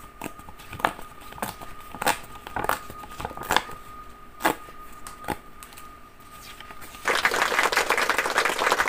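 Perforated side edges of a paper mailer being torn off: a string of short rips and clicks. From about seven seconds in, a louder continuous paper rustling and crinkling as the sheet is opened out.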